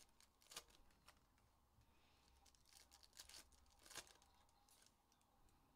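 Faint crinkling and a few soft scattered clicks of trading-card pack wrappers and cards being handled.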